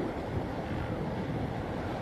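Wind buffeting the microphone over a steady wash of river waves: an even, low rumble with no distinct tones or events.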